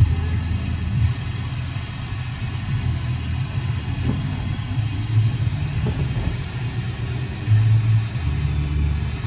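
Car radio tuned to 93.1 MHz FM, picking up a weak long-distance station: a low rumble with a steady hiss over it, and no clear music or voice coming through.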